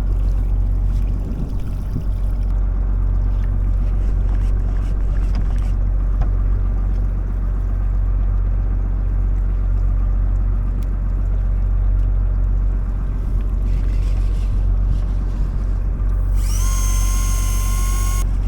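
A fishing boat's engine running steadily with a low hum. Near the end a brief high whine rises and then holds steady before cutting off.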